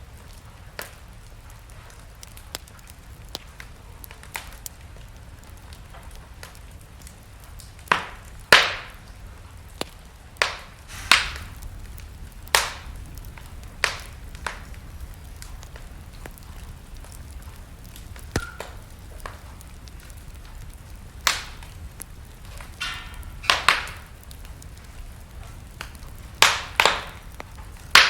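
Wood fire burning in a fireplace, crackling with a dozen or so sharp pops and snaps at uneven intervals over a low steady rumble of the flames.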